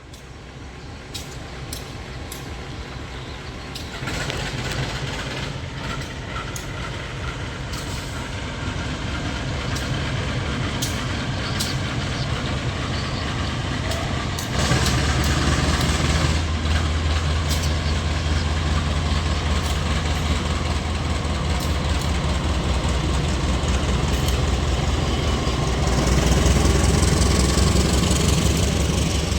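Diesel-electric locomotive engine running and growing steadily louder, its low note stepping up about four seconds in and again about halfway, as the locomotive throttles up to pull the train out; scattered clicks sound in the first half.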